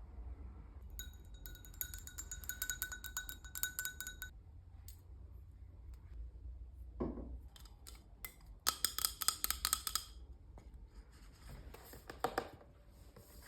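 Rapid clinking and tapping of a utensil against a ringing glass or ceramic vessel, in two spells: one of about three seconds, then a shorter one near the end. A brief scrape comes in between, and a few single taps follow.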